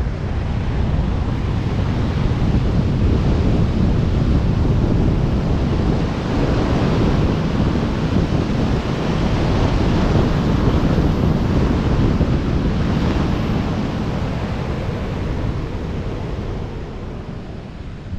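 Airflow of wingsuit flight buffeting the microphones of a GoPro MAX 360 camera: a loud, steady rush of wind noise that swells in the middle and eases near the end.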